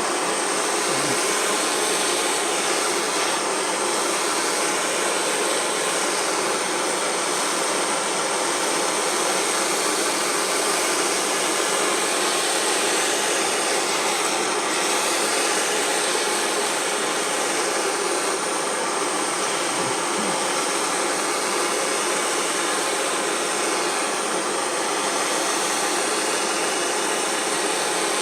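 DIY blowtorch flame burning with a steady, loud hiss, shifting slightly in tone as the torch moves.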